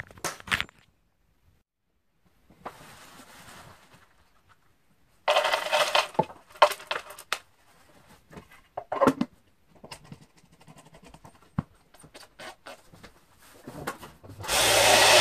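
Bullets clattering and rustling in paper towels, handled and tipped about, with knocks against the table. Near the end a Lyman Turbo Pro 1200 vibratory tumbler is switched on: a loud, steady hum and rattle that stops suddenly a moment later.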